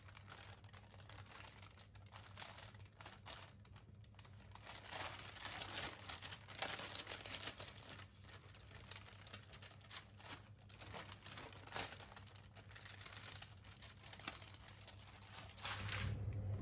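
Silicone-coated baking paper crinkling and rustling in uneven spurts as it is peeled away from baked almond meringue cake layers.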